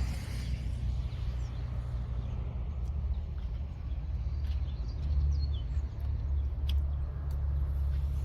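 A steady low rumble, getting somewhat stronger about five seconds in, with faint bird chirps and a few light clicks over it.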